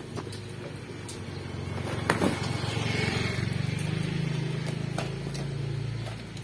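A motor vehicle engine passing: a low hum that builds over a few seconds, shifts pitch about four seconds in and drops away near the end, with a sharp click about two seconds in.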